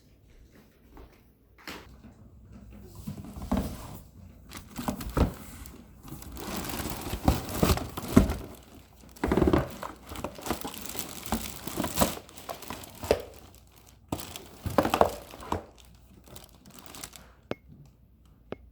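Packaging being crinkled, rustled and torn open while a booster seat is unboxed, in irregular bursts with a few knocks and thumps. It goes quieter about three seconds before the end, apart from a couple of sharp clicks.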